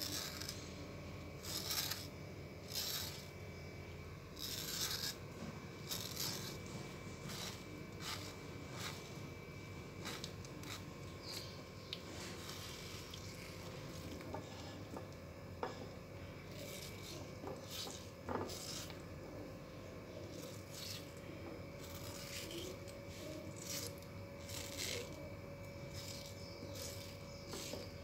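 Kitchen knife scraping and slicing through a ripe mango held in the hand: first paring off skin, then scoring the soft flesh into cubes, in short irregular scraping strokes with a couple of sharper ticks in the middle.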